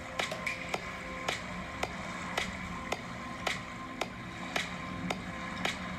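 Soft background music with a steady beat: a light click a little under twice a second over held tones.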